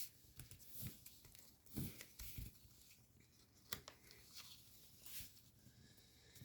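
Faint rustling and crinkling of origami paper being handled and folded: a few soft, scattered crackles with near silence between them.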